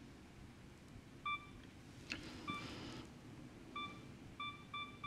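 Full-frame system camera's self-timer beeping, counting down to the shutter release: a couple of single beeps at first, then beeps quickening to about three a second near the end. A click about two seconds in.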